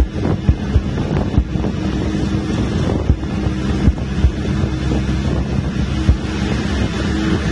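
A bus's engine running steadily under load, heard through an open window with wind buffeting the microphone, and several short thumps along the way.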